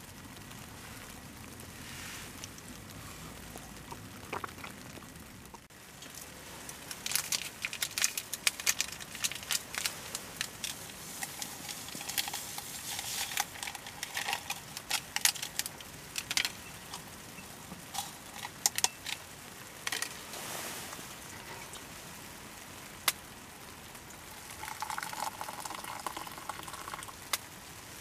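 Many sharp clinks and crackles in a drinking glass as iced coffee is made, thickest in the middle stretch, with a short pour into the glass near the end. The opening seconds hold only a faint low sizzle.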